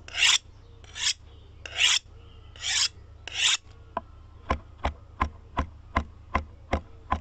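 Outro sound effect: five short noisy strokes about a second apart, each swelling and stopping sharply. They are followed by a steady run of sharp clicks, about three a second.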